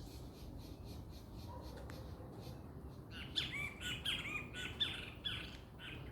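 A bird calling a quick series of about eight sharp, sweeping chirps, lasting about two seconds and starting around three seconds in, over a steady low background rumble.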